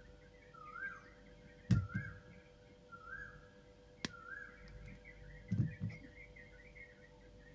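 Jewelry tools working silver wire: a sharp snip about four seconds in as flush cutters trim the wire tail, another sharp click just before two seconds, and soft knocks of the tools near two and five and a half seconds. A short whistled call, rising then falling, repeats about once a second over a steady hum.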